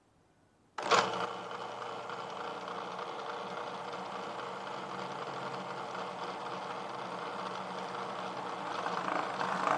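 Food processor switched on about a second in and running steadily, mixing an egg into a cocoa crumb mixture to bring it together as tart dough; the motor cuts off at the very end.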